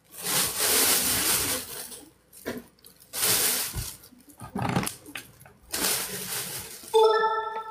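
Clear plastic sheet being crinkled and rustled in about four bursts. A short pitched sound comes near the end.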